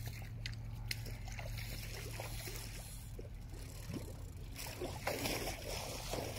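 Spinning reel being worked against a big lake sturgeon, with water noise over a steady low hum and a louder rough stretch about five seconds in.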